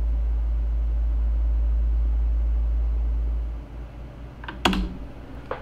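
A steady low rumble that fades out about three and a half seconds in, then a sharp computer-mouse click and a fainter click near the end as a move is confirmed on an online chess board.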